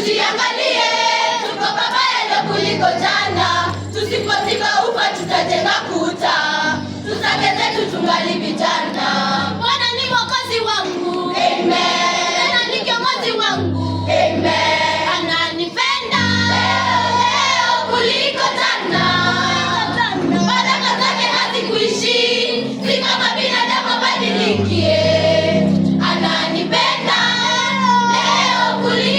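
Music with a choir singing over a steady bass line.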